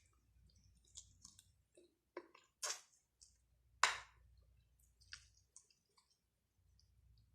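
Eating sounds: faint chewing with scattered mouth clicks and smacks, and two louder brief noises a little under three and four seconds in.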